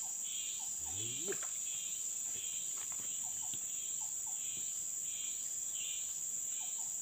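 Insects droning steadily at a high pitch, with a softer pulsing chirp repeating about twice a second. A brief low rising sound comes about a second in.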